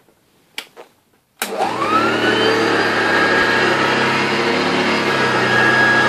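A couple of clicks, then a Hoover Junior U1012 upright vacuum cleaner switches on about a second and a half in. Its motor starts with a rising whine and then runs steadily.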